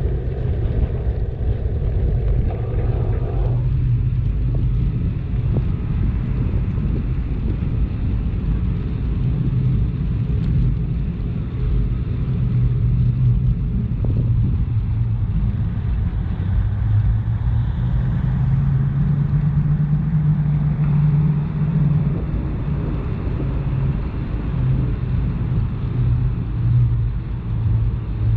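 Steady low rumble of wind and road noise while riding a bicycle, with motor traffic running alongside. A vehicle's engine hum grows stronger about two-thirds of the way through.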